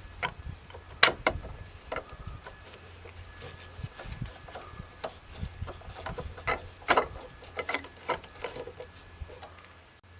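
Hand tools and wire being worked during electrical wiring: irregular sharp clicks, taps and scraping, with a low steady hum underneath.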